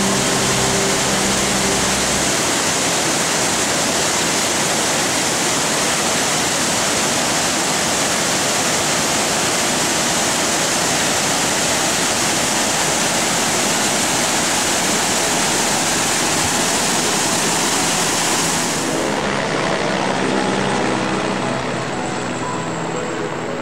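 Mountain river rushing, a loud steady hiss of white water that drops away about nineteen seconds in as soft music comes up.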